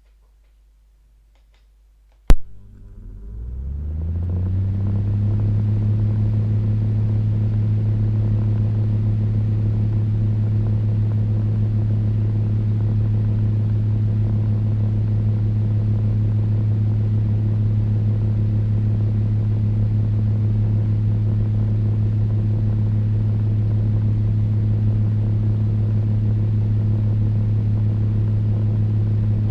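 Electric fan switched on with a click about two seconds in, its motor spinning up over a couple of seconds to a steady low hum with an airy hiss. Near the end another click, and the hum starts to wind down in pitch.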